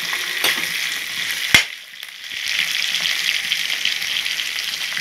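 Green chillies and onion sizzling in hot oil in an iron kadai as they are stirred with a steel ladle. There is one sharp knock of the ladle against the pan about a second and a half in, and after it the sizzle dips for about a second before it picks up again.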